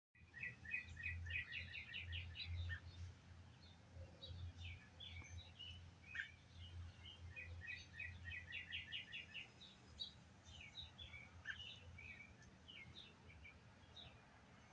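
Small birds chirping, faint, with two runs of quick repeated chirps, one near the start and one about halfway through, over a low steady hum.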